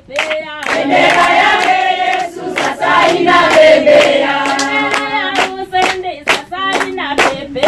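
A group of women singing a Swahili gospel chorus together, with rhythmic hand clapping keeping the beat.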